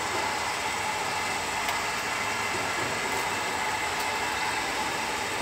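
Water boiling hard in a stainless steel pot on a gas burner: a steady rushing hiss of bubbling and flame.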